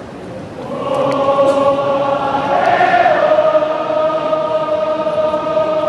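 Large stadium crowd of football supporters singing a chant together in long held notes. The singing swells about a second in and stays loud.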